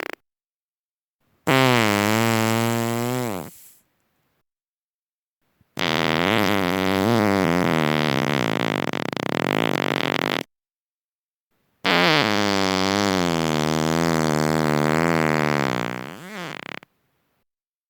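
Three human farts in a row with silence between them: a shorter one of about two seconds, then two long, drawn-out ones of about five seconds each. Each is pitched, its tone wavering up and down.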